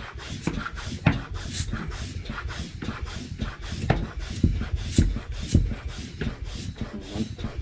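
Hands working a mountain bike tyre onto its wheel rim: rubber rubbing and squeaking with irregular knocks and handling noise, several a second.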